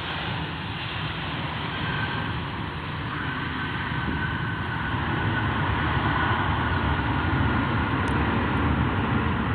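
Jet airliner engine noise, a steady rushing sound with a faint high whine, growing somewhat louder from about three seconds in.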